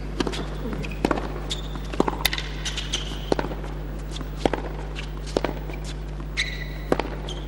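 Tennis rally on a hard court: sharp racket-on-ball hits and ball bounces about once a second, with short high squeaks of tennis shoes on the court between them.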